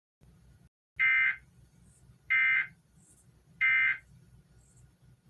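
Emergency Alert System end-of-message code: three short, identical digital data bursts about a second apart, signalling that the Amber Alert broadcast is over.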